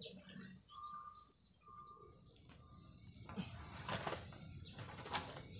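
Insects trilling steadily at one high pitch, with three short even whistled notes in the first half and a few sharp knocks later on.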